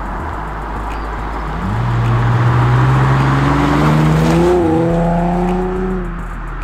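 Nissan 370Z's V6 with an aftermarket DNA Motoring catback exhaust, driving past. The engine note swells and climbs as the car comes up, drops as it passes about two-thirds of the way through, then fades away.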